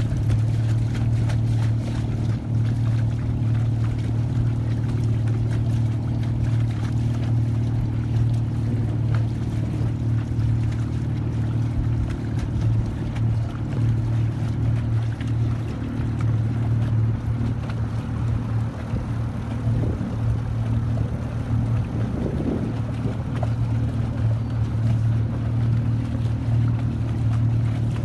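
Small outboard motor of a Craig Cat twin-hull boat running steadily under way, a constant low hum over a hiss of water and wind.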